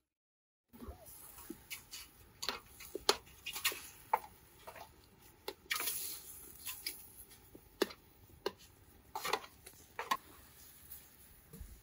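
Irregular light knocks and clinks of hands-on cooking work, kitchen utensils and cookware being handled, after a brief moment of dead silence at the start.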